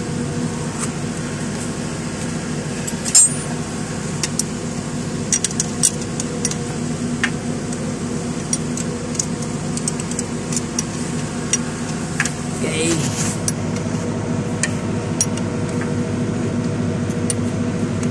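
Scattered light metallic clinks and taps of hand tools and bolts as a replacement alternator is fitted to an Isuzu 4HF1 engine, with one sharper clink about three seconds in, over a steady low machine hum.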